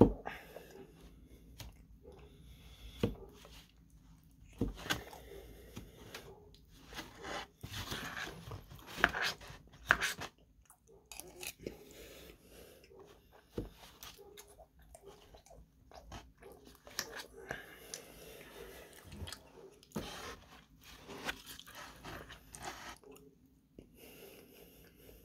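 Close-up wet chewing and biting of apple pie with cream, in irregular bursts, with a few sharp clicks of the metal spoon scattered through.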